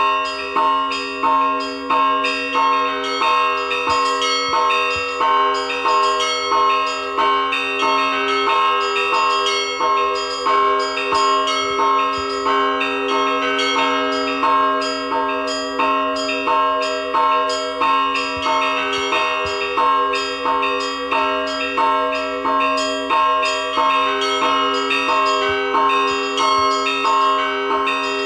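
Russian Orthodox church bells rung in a continuous peal: several bells struck over and over in a steady repeating rhythm, the loudest strokes coming a little more than once a second, with a deeper bell's tone ringing on underneath.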